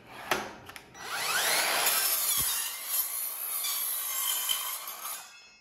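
Evolution 18V cordless circular saw with a multipurpose blade cutting through a wooden board with three nails driven into it. The motor spins up with a rising whine about a second in, cuts for about four seconds, and stops abruptly near the end.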